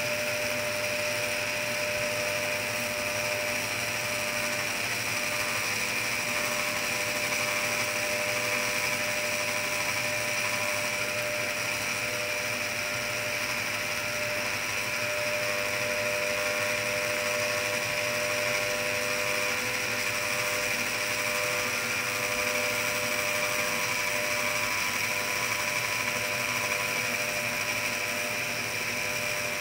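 Circular Knitic circular knitting machine running, its motor turning the ring of plastic needles with a steady, even whir and a few held tones.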